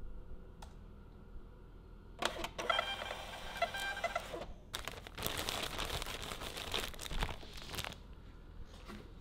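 Thermal label printer feeding out a shipping label, its motor whirring for about two seconds. Then a plastic mailer bag crinkles as it is handled.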